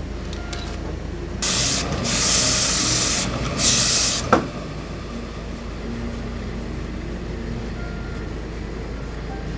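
Hose-fed steam iron giving three bursts of hissing steam onto a suit jacket, starting about a second and a half in, followed by a sharp click.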